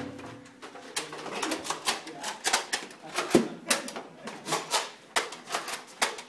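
Nerf blasters firing foam darts: a rapid, irregular run of sharp clacks and snaps, several a second.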